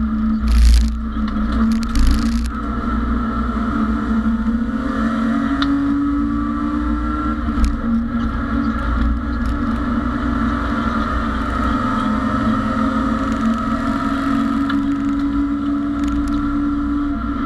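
BMW E30 race car's engine pulling hard at high revs, heard inside the stripped cabin along with road and transmission noise. The pitch rises a little about five seconds in and then holds steady. Two brief loud rushes of noise come about half a second and two seconds in.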